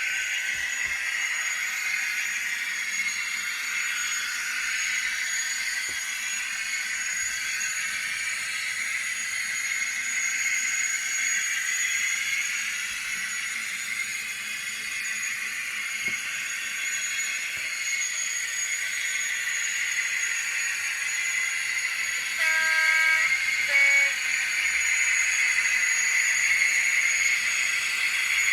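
Sound decoder of an N gauge Class 56 model diesel locomotive playing its engine sound through a tiny speaker, a steady thin running noise as the model moves, with a fixed high whine. About 22 seconds in, the horn sounds in two short notes, the second lower.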